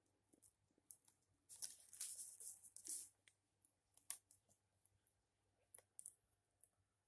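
Hands handling a laptop LCD panel and its taped video cable connector: light rustling and crinkling, with a longer stretch about two seconds in and a sharp click about four seconds in.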